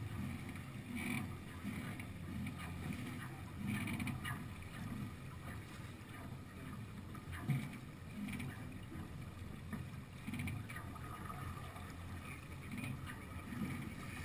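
Water rushing along the hull of a Beneteau sailing yacht heeled under sail, with a slap of water against the bow every few seconds. A single short, sharp knock comes about halfway through.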